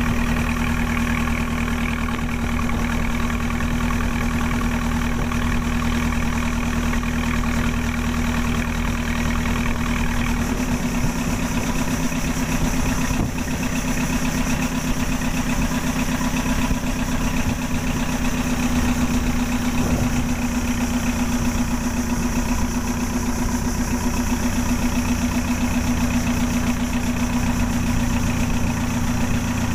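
Engine of a wooden motorboat running steadily under way, with a humming tone; its low rumble changes about ten seconds in.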